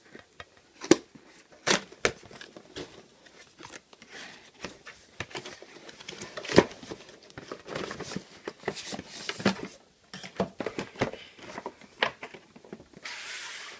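Dashcam retail box and its packaging being opened by hand: a run of irregular clicks, knocks and crinkling, with a short hiss near the end.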